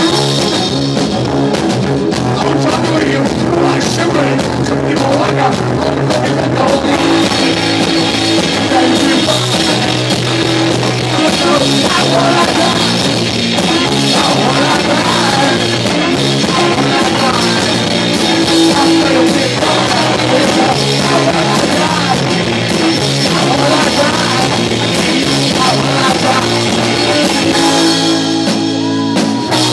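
Live rock band playing loud: an electric guitar riff over a driving drum kit with crashing cymbals, heard from within the crowd in a small club.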